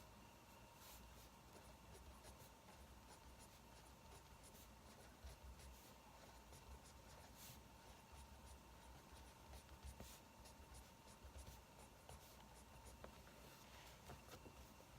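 Faint pen-on-paper writing, with scattered small crackles from a log-fire recording and a thin steady hum.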